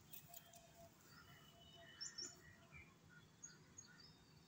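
Near silence with faint, scattered bird chirps in the background and a few faint clicks.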